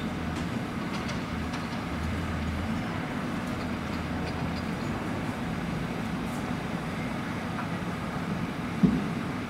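Freight train of tank wagons hauled by a locomotive passing at a distance: a steady low rumble, with one sharp thump near the end.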